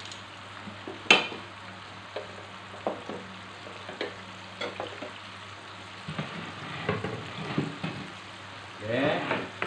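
Breaded chicken pieces shallow-frying in oil in a pan, a steady sizzle throughout. It is broken by sharp clacks and knocks of metal tongs and a wooden cutting board being handled on the counter, the loudest about a second in.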